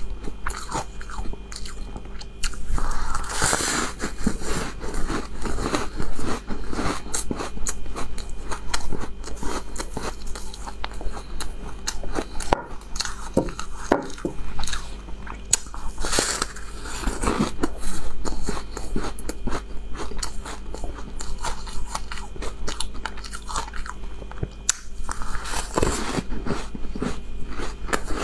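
Close-miked biting and chewing of a moulded block of purple-and-white coloured ice: dense, sharp icy cracks and crunches throughout, with three louder spells of crunching, a few seconds in, about halfway and near the end.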